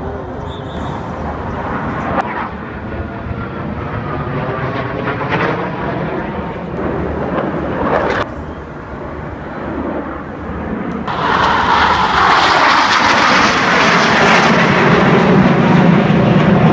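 Jet aircraft of an aerobatic display formation flying overhead, the engine noise sweeping and shifting in tone as they move. About eleven seconds in, the jet noise grows much louder and holds at that level, as aircraft pass closer.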